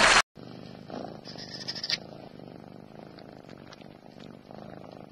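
Music cuts off abruptly just after the start, then a domestic cat purring close to the microphone, with a brief rustle near two seconds in.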